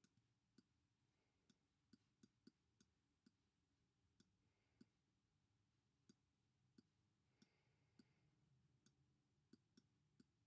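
Near silence, with about a dozen faint, irregular clicks of a stylus tip tapping a tablet surface while a word is handwritten.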